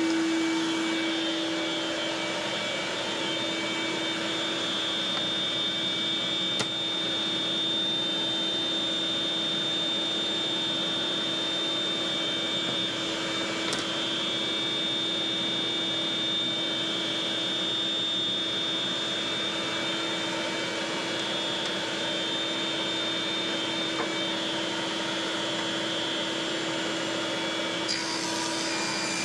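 A motor-driven machine running steadily, a constant drone with a steady whine in it. Near the end a higher hiss joins.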